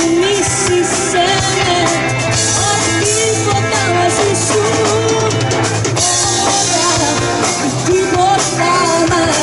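Live pop-rock band playing: a woman singing into a microphone over electric guitars, keyboard, bass and a drum kit.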